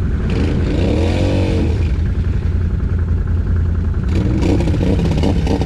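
Quad (ATV) engine running under throttle while riding through mud, its pitch rising and then falling in a rev about a second in, with the engine picking up again near the end.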